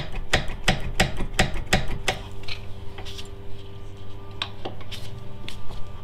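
Rear brake caliper of a Mini Cooper Countryman S being wiggled and pried off the rotor by hand: a series of sharp metal clicks and clinks, about three a second at first, then sparser, over a steady low hum.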